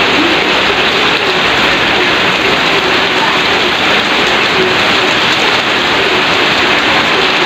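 Heavy rain falling steadily onto standing floodwater, a loud, even hiss.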